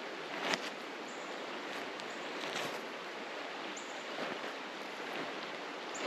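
Steady rush of flowing water, with a few slightly louder splashing moments and some brief high chirps.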